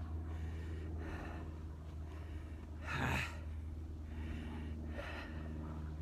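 A person breathing hard while trudging through loose sand, with soft breaths about once a second and a louder voiced exhale about halfway through, over a steady low rumble.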